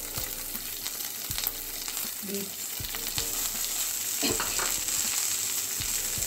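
Chopped capsicum, garlic and green chilli sizzling steadily in hot oil in a non-stick frying pan, with a few light clicks as more chopped beans go into the pan.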